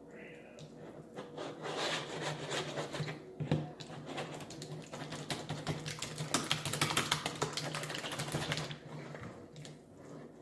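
Jelly slime with white glue being squished and kneaded by hand: a fast run of wet clicks and pops that keeps up for about eight seconds and stops near the end.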